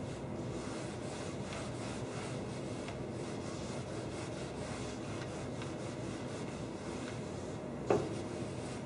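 Whiteboard eraser being wiped across a whiteboard: a steady rubbing, with a single sharp knock near the end.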